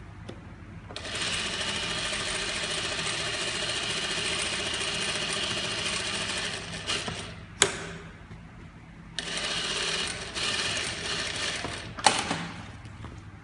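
Sakura Stitch single-needle industrial sewing machine stitching at a steady speed in two runs, the first about six seconds long and the second about three. Each run ends in a sharp click.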